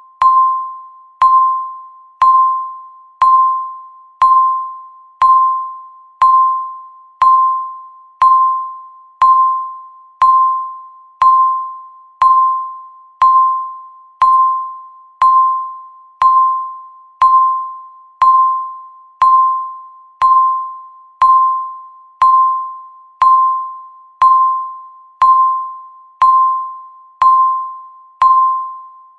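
Countdown timer's electronic beep sounding once a second, each beep a single mid-pitched tone that starts sharply and fades away before the next, ticking off the seconds.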